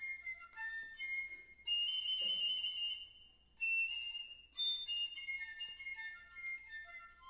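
Piccolo solo playing quick runs of short high notes, with two longer held high notes in the middle, each followed by a brief pause, and almost no accompaniment underneath.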